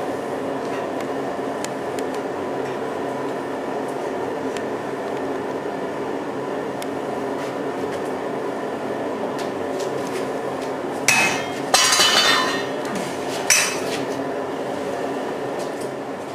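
A steady mechanical drone runs throughout the blacksmith's forge. About two thirds of the way in, iron clanks and clatters against metal three times, and the middle clank is longer and ringing.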